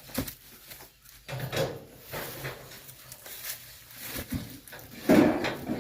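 Objects being handled and moved about: scattered knocks, clicks and short scrapes, with a louder scraping or rustling clatter about five seconds in.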